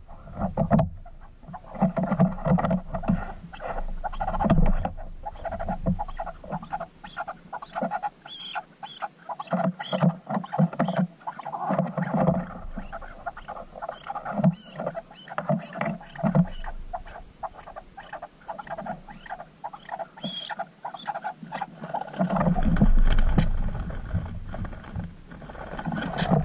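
Chukar partridges giving short, repeated clucking calls close to the microphone. A heavy low rumble comes in near the end.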